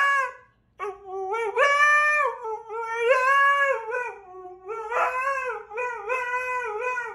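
Siberian husky howl-talking: a long string of drawn-out, wavering howls that slide up and down in pitch, with a short pause about half a second in.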